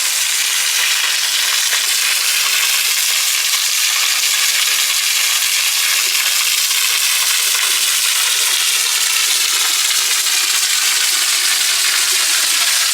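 Steady, even hiss of water, loud and unchanging.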